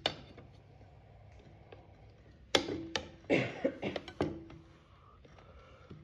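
Metal tire irons clacking and scraping against a small dirt bike wheel rim while the tire bead is levered on. There is one click at the start, then a run of sharp clacks about two and a half to four and a half seconds in, some with a short metallic ring.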